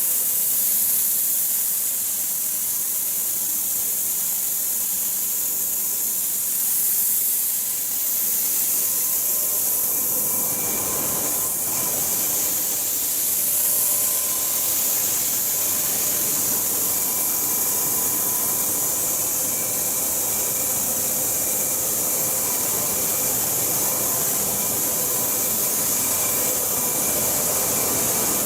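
A KOHAN steel-coil cut-to-length line running: a steady high hiss with faint, even hum tones at a few pitches, and no distinct shear strokes.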